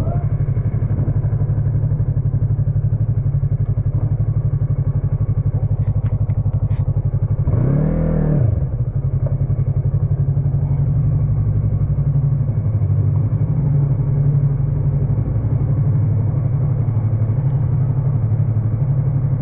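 Yamaha MT-03's parallel-twin engine running at steady revs, with one brief rev that rises and falls about eight seconds in.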